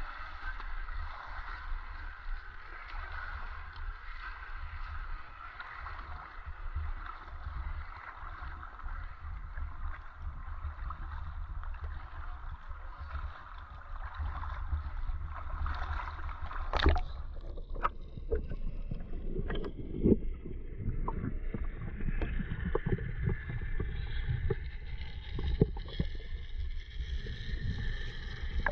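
River water running past a waterproof action camera at the surface, a steady hiss over a low rumble. A little past halfway a sharp click comes and the sound turns to the muffled gurgling and knocking of the camera submerged in the current.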